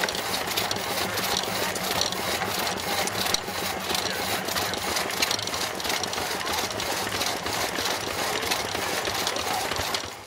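Vintage engine-driven machinery running steadily: a rapid, even mechanical clatter over a low engine hum.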